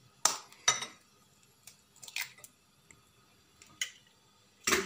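An egg being cracked into a glass bowl: two sharp taps of the shell against the glass, then a few faint clicks as the shell is opened and the egg drops in. Near the end comes another sharp knock on the glass.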